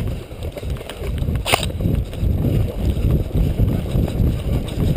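Running footsteps on a dirt track, with gear jostling and wind buffeting the microphone of a camera worn by the runner. A single sharp click lands about a second and a half in.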